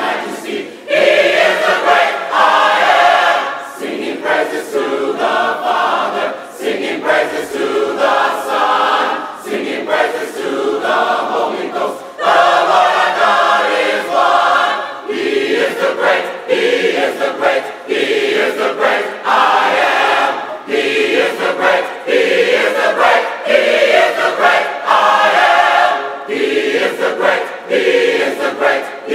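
A gospel choir singing a continuous song in phrases.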